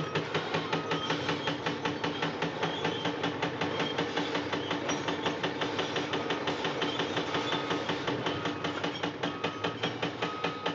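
Jackhammer pounding rapidly and steadily, about four blows a second. A faint short beep repeats roughly once a second.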